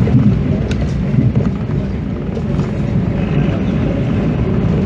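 Higer KLG6770G bus engine running as the bus drives in traffic, heard from inside the passenger cabin, with road noise. A brief click comes about three-quarters of a second in.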